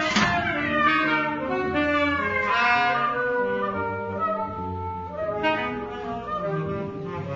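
A saxophone ensemble playing long, overlapping held notes over electric bass, getting gradually quieter toward the end.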